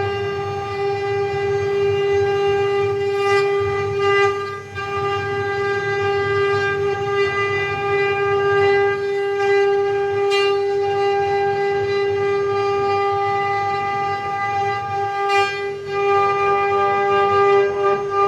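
Mini CNC wood-carving machine running: its spindle gives a steady high whine with a low rumble beneath, broken by a few brief rasping noises.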